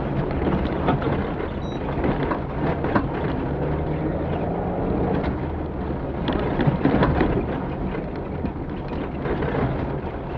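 Off-road rally vehicle driving over rough ground, heard from inside: a steady engine drone under a heavy rumble from the tyres and body, with frequent sharp knocks and rattles, loudest a little past the middle.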